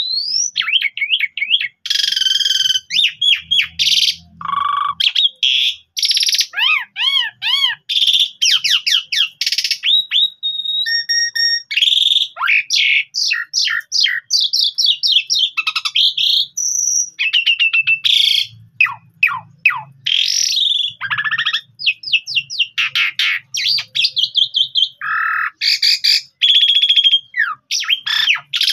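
Caged jalak suren (Javan pied starling) singing a long, nearly unbroken song. It mixes loud whistles, rising and falling glides, fast runs of repeated notes and harsh chattering notes, with only brief pauses.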